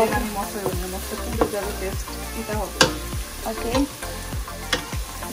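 A spatula stirring and scraping chicken curry as it fries with its spices in a pot, with sharp scrapes and knocks about twice a second over a steady sizzle.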